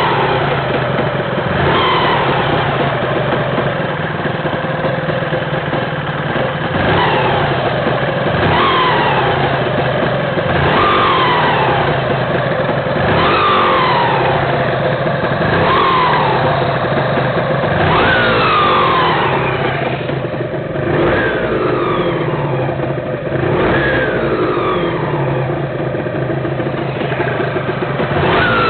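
Honda NSR250 (MC21) two-stroke V-twin engine revved in repeated quick throttle blips, each rising sharply and falling back toward idle, roughly every two seconds. It runs with a loud mechanical noise after a full rebuild with a new crankshaft, which the owner traces to the primary drive gear area.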